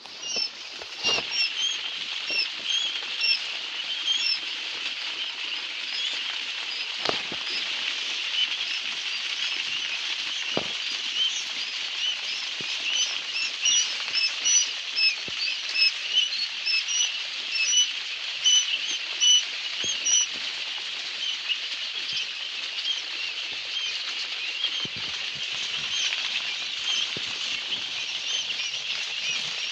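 Many young quail chicks peeping at once: a dense, unbroken chorus of short high peeps, with a few sharp knocks in the first third.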